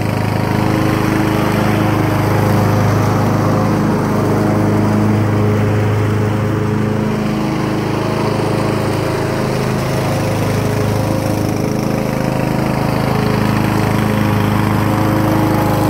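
Ariens 42-inch automatic lawn tractor's 19.5 hp, 500cc Briggs & Stratton Intek engine running steadily while mowing grass with the deck engaged, the note dipping briefly a couple of times.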